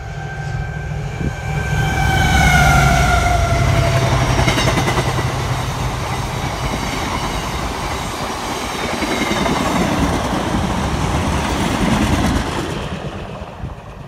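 A freight train passing close at speed. The locomotive sounds a single-note horn whose pitch drops as it goes by, over a low engine rumble. Then a long rake of wagons rolls past with steady wheel-and-rail noise that fades away near the end.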